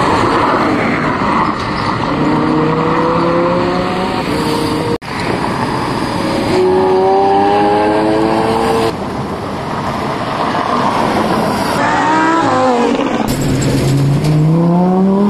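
Lamborghini Huracán V10 engines revving hard and accelerating away, the pitch climbing in several rising sweeps. The sweeps come in short spliced-together passes, each cut off abruptly.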